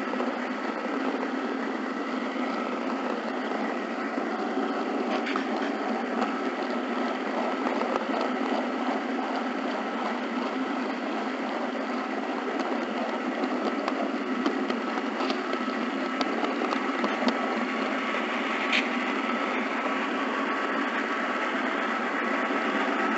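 HO scale model train running along the track: a steady whir of a small electric motor and gearing. A few sharp clicks sound as the wheels cross rail joints and turnouts.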